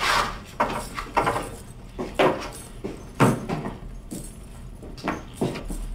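Irregular knocks and metallic jangling, about two strokes a second.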